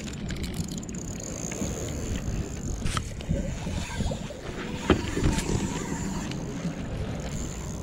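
Clothing rubbing and rustling against a body-worn camera as the wearer shifts about on a boat deck, with two sharp knocks about three and five seconds in.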